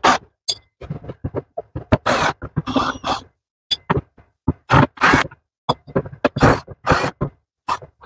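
Irregular scrapes, clicks and knocks from handling a home espresso machine's casing and a handheld screwdriver while the casing screws are taken out. The sounds come as short separate bursts with gaps between them.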